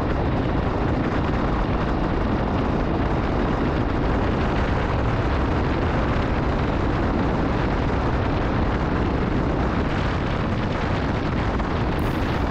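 Jawa motorcycle ridden along a road: a steady, deep rush of wind and engine noise that holds an even level.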